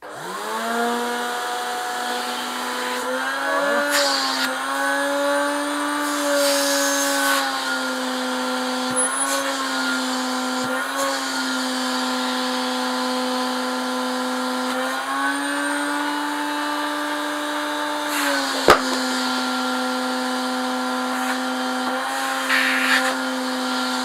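Elektrosila-2 vacuum cleaner (1985, Soviet-made) switched on, its motor spinning up within about a second to a steady whine. The pitch shifts slightly up and down a few times, and there is one sharp click about three-quarters of the way through. The machine is running after being reassembled following repair of a rattling bearing.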